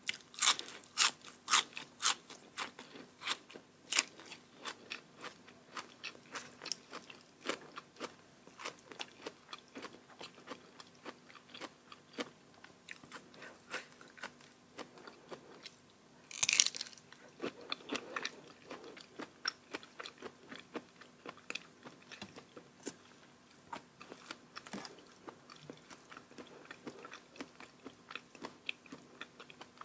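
Close-miked chewing and crunching of a mouthful of spicy Thai salad with crisp raw vegetables and fresh shrimp. Quick crunches come thickest in the first few seconds, with one louder, longer crunch about halfway through, then steadier chewing.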